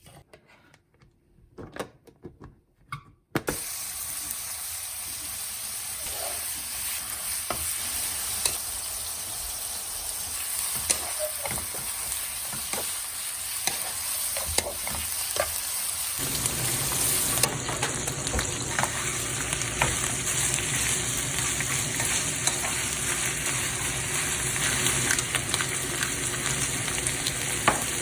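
A few light knocks, then food in a hot frying pan starts sizzling suddenly about three seconds in and keeps sizzling steadily, getting fuller about halfway through, with occasional clicks of stirring.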